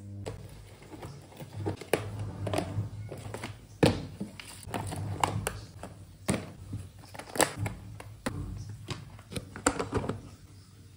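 Plastic food storage boxes and lids knocking and clacking against each other as they are picked up and stacked, in irregular sharp knocks. Underneath, a steady low hum from a washing machine running, quite noisy.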